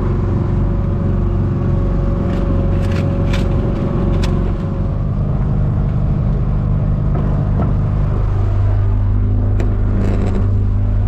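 Fishing boat's engine running steadily, its note shifting about five seconds in and again near eight seconds, with a few sharp knocks and scrapes from weed-covered lobster pots being handled on deck.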